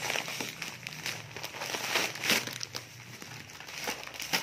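Clear plastic packaging and bubble wrap crinkling and crackling as they are pulled open by hand, in irregular bursts, loudest about two seconds in.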